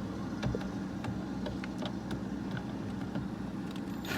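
Scattered small clicks and taps of hands and a tool working the screws and clips of a car door panel, with one sharper click near the end, over a steady low hum.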